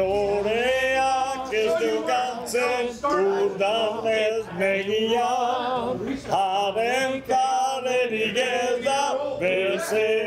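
A group of male voices singing a song together, choir-like, with sustained wavering notes.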